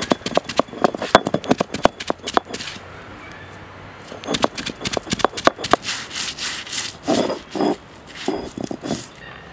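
Stone roller crushing and grinding grated coconut with turmeric on a flat grinding stone (ammikkallu), making a coconut paste. A quick run of sharp clicks and knocks over the first couple of seconds, then rhythmic rasping back-and-forth strokes.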